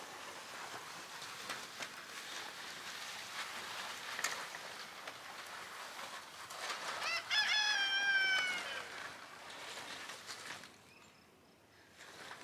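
A rooster crows once, about seven seconds in: a single call of about two seconds that falls slightly in pitch toward the end. It stands over a steady noisy background with scattered clicks.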